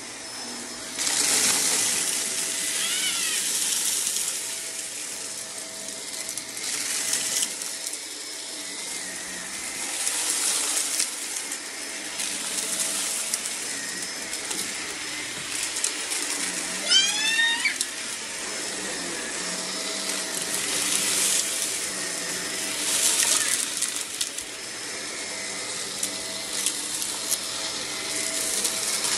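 Vacuum cleaner running over carpet, a steady motor hum under a hiss of airflow that swells and fades every few seconds as it is pushed back and forth. A short run of rising chirps cuts through about three seconds in, and more strongly about seventeen seconds in.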